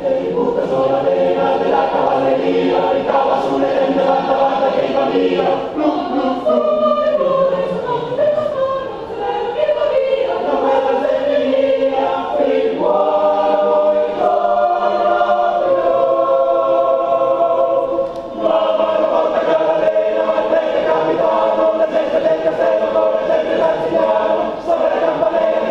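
A choir of men and women singing a cappella in harmony, holding long chords that change every few seconds.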